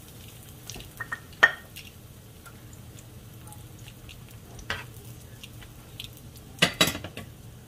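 Cabbage-and-egg fritter frying in a nonstick pan with a low steady sizzle, while a metal spatula knocks and scrapes against the pan a few times; the sharpest knock comes about a second and a half in, and a quick pair near the end.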